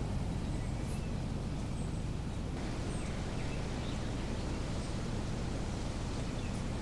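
Wind rumbling steadily on the microphone, with a few faint, short bird chirps scattered through.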